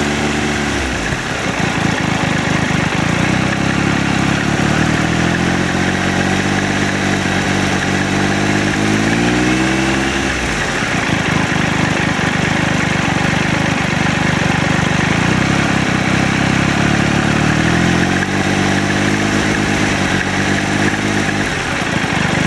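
Triumph Tiger Explorer's three-cylinder engine revved slowly up from idle and let drop back sharply, twice: once over about eight seconds, then again near the end. It carries a rattling noise that the owner counts as a fault.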